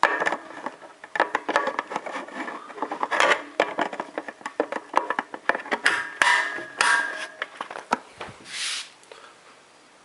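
Plastic battery compartment cover on the underside of a Casio CTK-6300IN keyboard being fitted and closed, with many irregular clicks and knocks as the keyboard body is handled, and a brief rubbing near the end.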